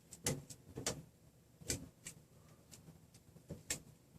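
A few light, separate clicks and taps, about five over four seconds, from handling calipers against the printer frame's metal rods while measuring.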